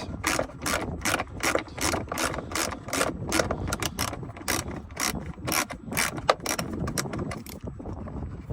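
Ratchet tool clicking in a steady run of about three to four clicks a second while a Torx T20 screw is backed out, stopping near the end.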